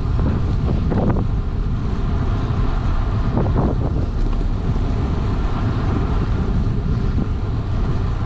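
Wind buffeting the microphone of a camera riding on a moving bicycle: a steady, heavy low rumble.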